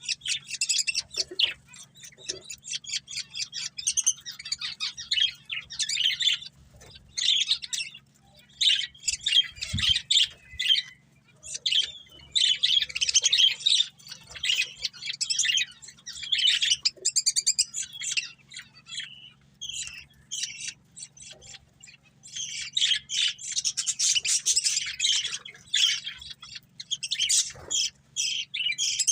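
Pair of budgerigars chattering and chirping, bursts of rapid high-pitched warbling and squawks lasting a few seconds each, with short pauses between.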